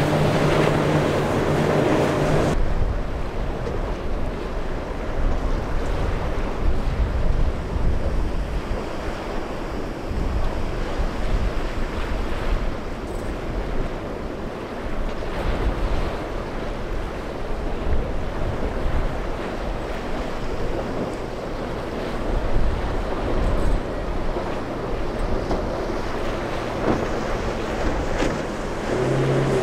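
Wind buffeting the microphone over choppy surf. For the first two seconds or so a center console boat's outboard engines run at speed, then stop abruptly. A boat engine comes in again near the end.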